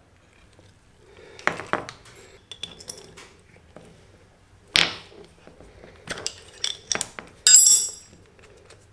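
Hand wrenches and a metal clutch master cylinder pushrod clinking on a concrete floor as the pushrod's locknut is adjusted: scattered light clicks, a sharp knock midway, and a ringing metal clatter near the end, the loudest sound.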